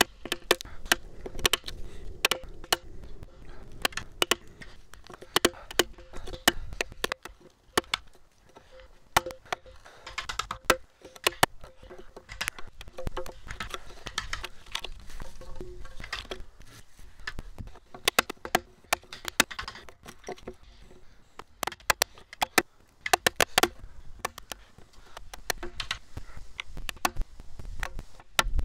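Japanese chisel driven repeatedly into a softwood beam to chop out a mortise: sharp wooden knocks in irregular runs, with short spells of scraping as chips are pared and levered out of the hole.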